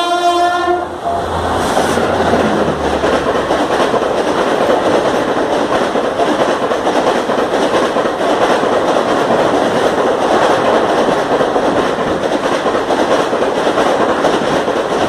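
Garib Rath Express passenger train running through at speed: a steady, loud rush of coaches and wheels on the rails. A locomotive horn blast ends about a second in.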